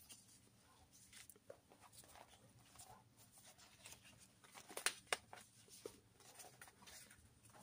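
Faint rustling and light taps of paper and card as a handmade junk journal's tags and pages are handled and turned, with a couple of sharper clicks about five seconds in.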